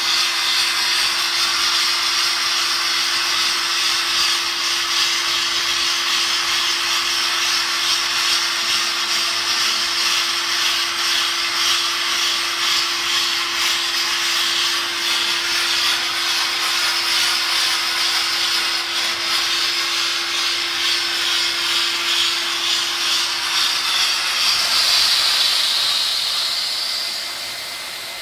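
Sandblasting head of a hand-guided blasting table blasting a stone plaque: a steady loud hiss of air and abrasive, with a steady low hum beneath. The hiss swells briefly near the end, then dies away.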